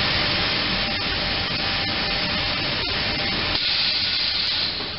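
Steady hiss and hum of a row of bladder-type motorcycle tire curing presses, the hiss of steam or air at the presses. About three and a half seconds in, the low hum drops away and the hiss turns brighter.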